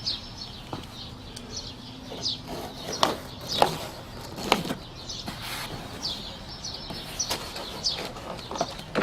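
Birds chirping: short high calls, each sliding down in pitch, repeated every second or so, with a few louder calls that drop much lower.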